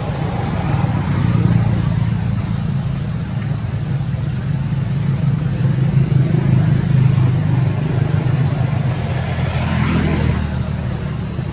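A steady low engine rumble from a motor vehicle running. It swells briefly about ten seconds in.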